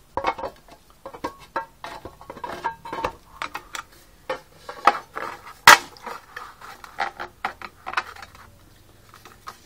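A plastic-cased motorcycle battery being set into aluminium mess tins and shifted about: a run of irregular metal-and-plastic knocks, clatters and scrapes, with one sharp knock a little past halfway.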